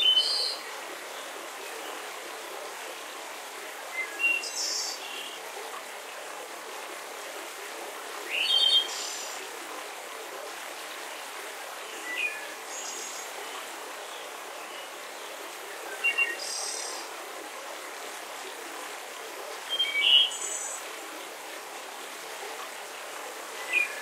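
Steady rush of a waterfall, with small birds giving short chirping calls about every four seconds, each a quick cluster of high notes.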